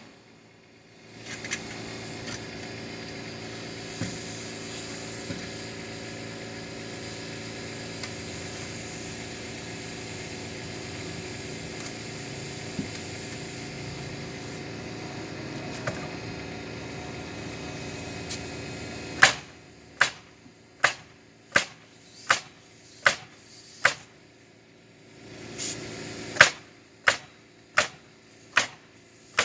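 A steady background hum, then nails being driven into the roof: a run of sharp, evenly spaced hits, a little more than one a second, about two-thirds of the way in. The hits stop for a couple of seconds, then start again.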